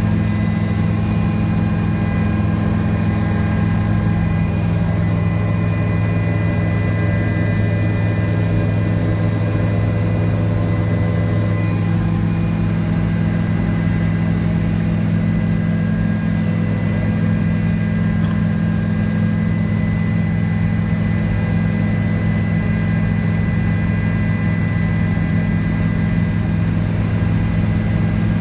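Helicopter's engine and rotors running steadily, heard from inside the cabin: a loud, constant low drone with fainter steady whining tones above it.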